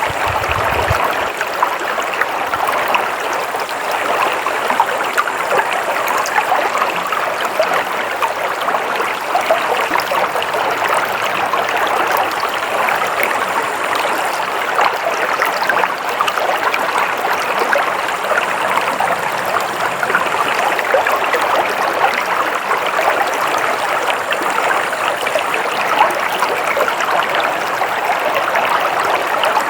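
Flowing water, a stream running steadily with an even, unbroken rush.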